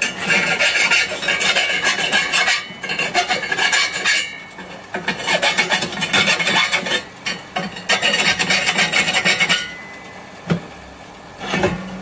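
Hand file rasping on steel in long scraping bouts, three main runs of filing with short pauses between.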